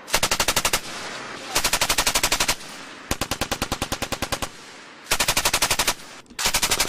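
Machine gun firing in short bursts, about a dozen rounds a second: four bursts with short pauses between them, and a fifth starting near the end, each followed by a brief echo.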